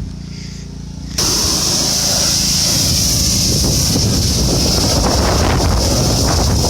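A vehicle engine running steadily; about a second in the sound jumps suddenly louder to a steady rumble with a strong hiss of wind on the microphone.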